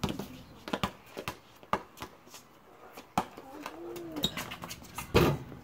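A basketball bouncing on pavement in irregular knocks, the loudest thump about five seconds in. A single short, low call rises and falls about four seconds in.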